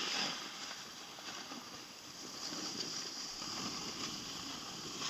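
Snowboards sliding and scraping over packed snow while riding down a slope, a steady rushing noise that swells and eases with the turns.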